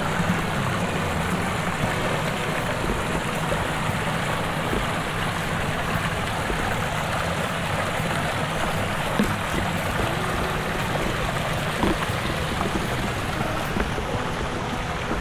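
Steady rush of falling water from a large waterfall.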